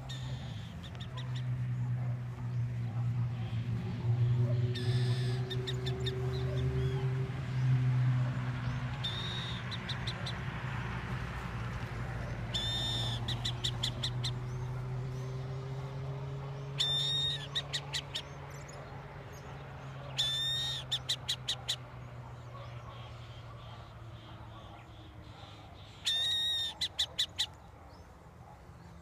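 Burrowing owl calling in repeated bouts a few seconds apart, about six in all, each a short clear note followed by a quick run of rattling ticks. A steady traffic hum runs underneath, louder in the first several seconds as a vehicle passes.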